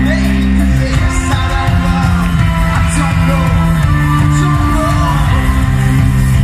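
Live pop-rock band playing, with electric guitar, bass, drums and keyboard under a male lead vocal singing.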